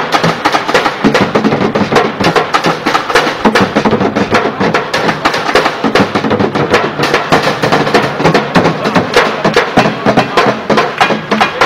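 Street drummer playing a fast, unbroken rhythm with drumsticks on an improvised kit of plastic buckets, plastic jerrycans and metal pans and tins: dense sharp hits, several a second.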